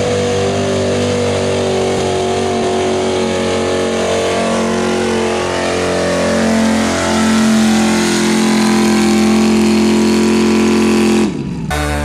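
Pickup truck's engine running hard under heavy load as it drags a weight-transfer pulling sled, steady and loud, growing a little louder past the middle. The sound cuts off abruptly near the end.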